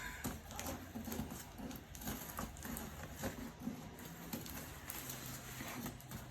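Irregular scratching, tapping and clicking as a cardboard booster box and its plastic wrap are cut and pulled at by hand.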